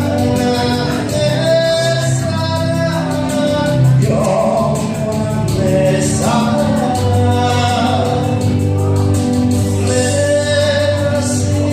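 A song: voices singing a melody over instrumental backing with a steady beat.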